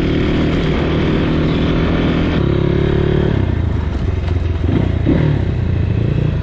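Motorcycle engine running under way. Its note changes about two and a half seconds in, then settles lower about a second later.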